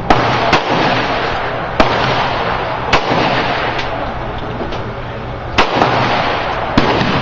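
Serbian-made Tokarev semi-automatic pistol firing 7.62x25 mm rounds: about six sharp shots at uneven intervals, two close together at the start, then single shots every second or so.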